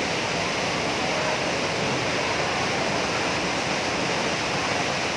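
Waterfall pouring into a rocky plunge pool: a steady, even rushing of falling water.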